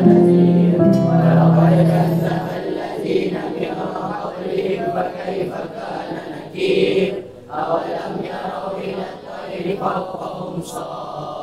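Background music score with choir-like singing: held notes at first, then a softer, quieter passage from about two and a half seconds in.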